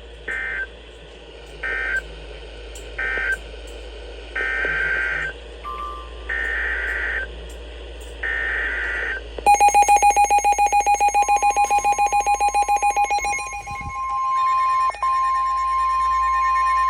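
NOAA Weather Radio SAME digital data bursts: three short screeching bursts, the end-of-message code, then three longer ones, the header of the next warning. About halfway through, the receivers' rapidly pulsing alert beeps start, joined shortly after by the steady 1050 Hz weather alarm tone.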